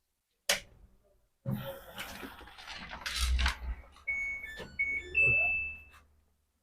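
A click and some handling noise with a low thump, then the Samsung front-load washing machine's control panel plays a short run of electronic beeps, about four notes stepping up in pitch with the last held longest, as the machine is switched on.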